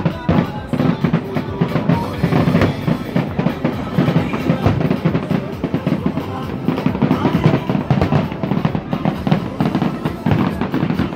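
Music with a prominent drum beat, loud and continuous.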